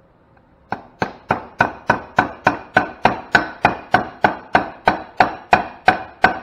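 A hammer tapping a steel pin punch about three times a second, about twenty even, sharp strikes starting just under a second in. The taps drive a small pin into the trunnion shaft of a hydrostatic transmission until it sits just below flush.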